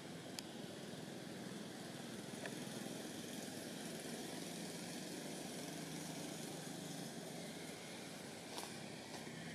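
Steady low hum of a distant engine running, with a few faint clicks.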